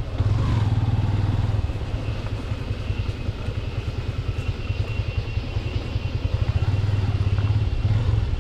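Motorcycle engine running as the bike is ridden, a steady low pulsing note that grows louder for the first second and a half and again near the end as the throttle changes.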